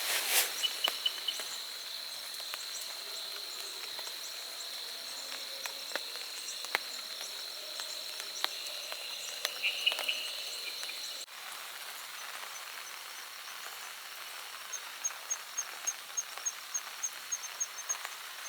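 Forest ambience in light rain: an even rain hiss with scattered drip ticks and a steady high insect trill. The trill stops abruptly at a cut about eleven seconds in. Near the end comes a rapid run of short high chirps, about four a second.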